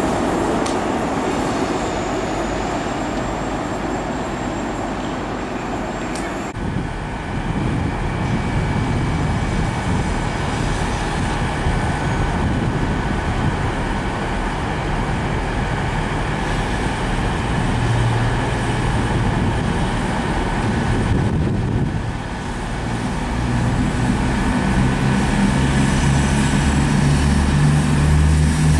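A train moving through the station: a steady rumble of wheels on rail, and from about two-thirds of the way through, a diesel engine's low note grows louder.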